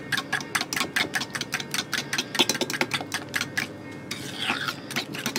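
A metal utensil beating an egg, sugar and olive oil mixture by hand in a plastic bowl: rapid, even clicking, about eight strokes a second, that turns into a softer swishing about four seconds in.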